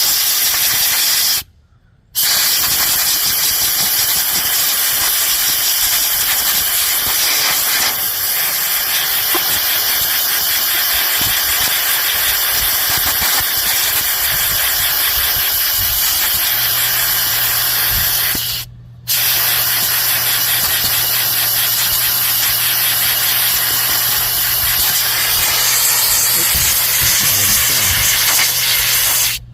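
Compressed-air blow gun hissing in long, loud blasts, cutting off briefly twice. A low steady hum joins about halfway through.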